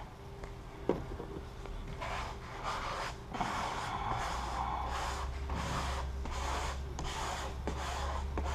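Repeated rubbing strokes across a car's hood surface while preparing and laying down a vinyl stripe, with a single click about a second in.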